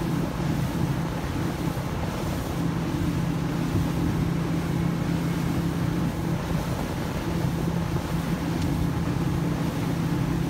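Motorboat engine running at a steady cruising speed, a constant low hum that does not change pitch, with wind and water rushing past the moving hull.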